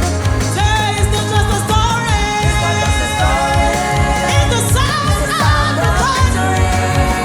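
A song with a singing voice over a steady beat and bass.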